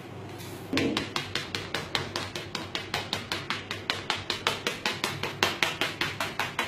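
Knife point jabbed rapidly through pizza dough into a metal pan, a fast, even run of sharp taps at about five a second starting about a second in.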